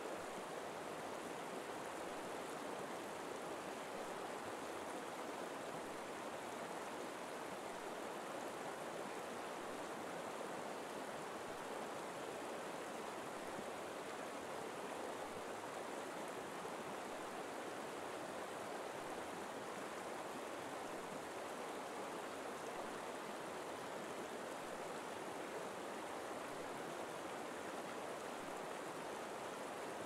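Forest river flowing: a steady, even rush of running water that does not change.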